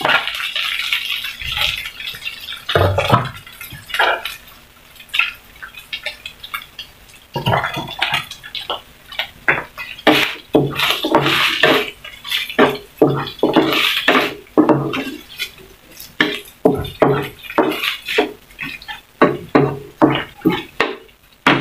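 A spatula scraping and knocking against a stone-coated nonstick frying pan as sliced hot dogs and ground pork are stirred. A few strokes come first, then a pause of about three seconds, then a long run of quick, irregular scrapes and taps.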